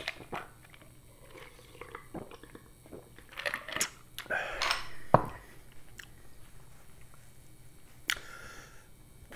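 Close-up drinking sounds: sips and swallows from a glass, with small mouth clicks. There is a single knock about five seconds in, and a short cloth rustle near the end as a napkin is wiped across the mouth.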